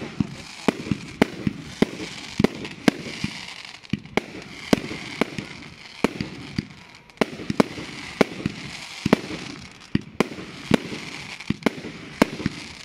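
Fireworks going off in quick succession, shot after shot from one launch point: sharp bangs about two to three a second, with a crackling hiss from the bursting stars in between.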